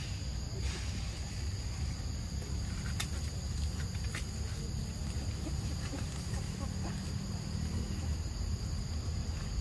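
Outdoor ambience: a steady high-pitched insect drone over a low rumble, with a couple of faint clicks about three and four seconds in.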